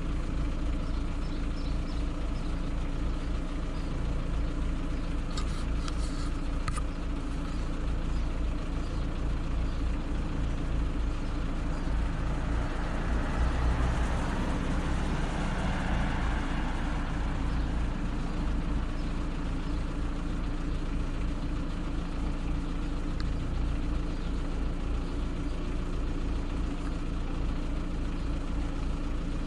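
A car engine idling steadily with a low, even pulse. A broad rush of noise swells and fades about halfway through.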